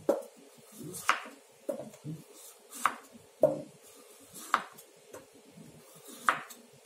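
Kitchen knife shaving the tough outer skin off a broccoli stalk over a wooden cutting board: about seven short, crisp cuts, one every second or so.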